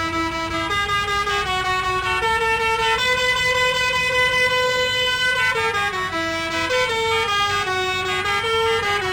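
Electronic tune playing from a ride-on Thomas kiddie train, a single reedy melody line of held notes stepping up and down in pitch.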